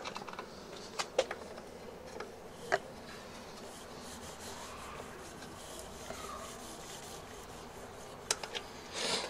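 Small sharp clicks and rubbing from hands working on a mountain bike's rear disc brake caliper, refitting the brake pads: a few clicks about a second in, another near three seconds and a couple near the end.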